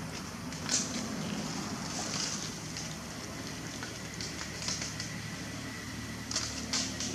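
Leaves and twigs rustling and crackling in short bursts, five or so times, as monkeys move through tree branches, over a steady low hum.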